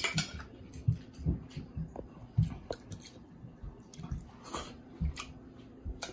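A person chewing a mouthful of beef wonton noodle soup, with irregular short clicks of chopsticks and a spoon against the bowl.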